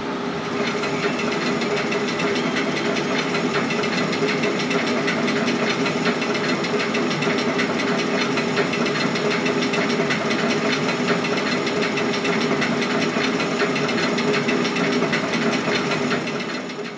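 Roller coaster train climbing the lift hill: a steady mechanical rattle and rapid clatter with a hum underneath, fading out near the end.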